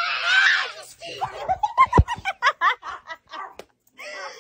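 A woman's short, high scream of fright, then laughter in quick, breathless bursts.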